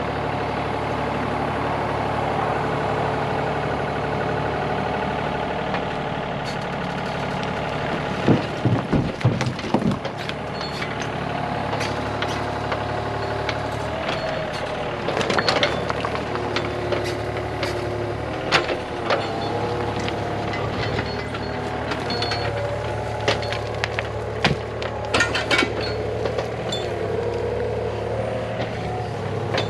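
An engine running steadily, its pitch shifting now and then as it works. Clusters of sharp knocks and clunks of stone come around a third of the way in, near the middle, and again toward the end.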